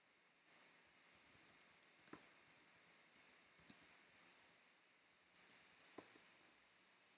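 Faint computer keyboard typing: a run of quick keystrokes, then after a short pause a few more.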